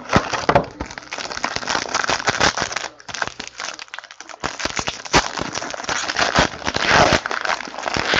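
Foil wrapper of a trading-card pack crinkling and tearing as it is ripped open by hand, with many sharp crackles and clicks.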